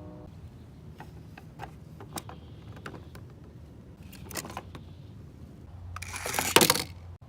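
Small plastic toys being handled: scattered light clicks and taps, with a louder, longer clattering noise about six seconds in.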